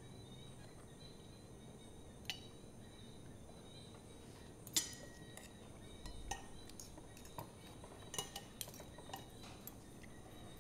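Spoons and forks clinking against plates and bowls while people eat, a scattered run of sharp clinks over faint room tone. The loudest clink comes about five seconds in and rings briefly; the clinks come closer together in the last few seconds.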